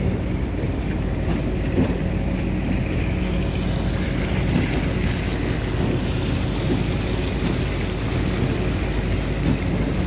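River water taxi under way, its engine running with a steady low hum, over water rushing past the hull and wind on the microphone.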